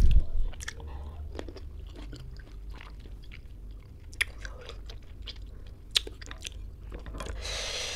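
Close-miked chewing and wet mouth sounds of a person eating ambarella fruit with alamang bagoong: scattered smacks and clicks as she chews and licks her fingers, loudest right at the start.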